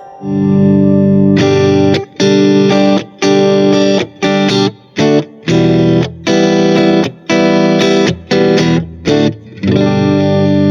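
Smiger LG2 Pro electric guitar played through distortion: a held chord, then a run of short chord stabs, each cut off sharply with brief gaps between them, and a sustained chord again near the end.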